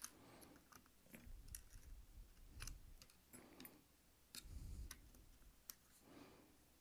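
Faint, scattered small clicks and taps of a screwdriver tip and fingers probing the plastic parts of an opened card terminal, with a few soft handling bumps.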